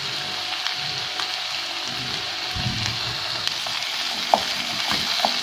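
Onion, pepper and tomato sauce sizzling in a frying pan while a wooden spoon stirs it, with light scraping against the pan. Two sharper clicks come near the end.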